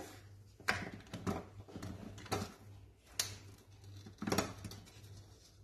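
Metal springform cake pan being handled as its side ring is loosened from a cooled cake: about five light, sharp clicks and knocks spaced out over a faint low hum.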